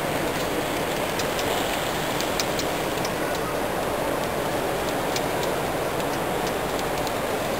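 Steady hubbub of a large exhibition hall full of people, with faint scattered light ticks from a model train's wheels running over the rail joints.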